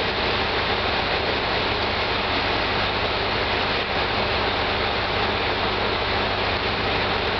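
Steady, even rushing noise with a low hum beneath it, unchanging throughout; no distinct train passing or engine rev stands out.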